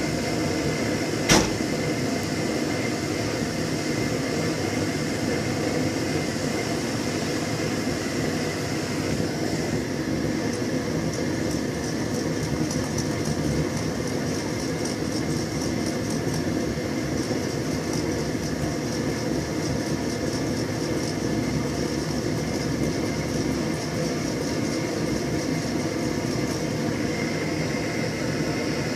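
MTZ-82 tractor's four-cylinder diesel engine running steadily after a cold start in frost, with one sharp click about a second in.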